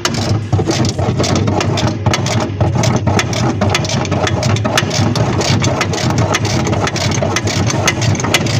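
Machinery running steadily with a low hum, overlaid by rapid, irregular clicking and rattling.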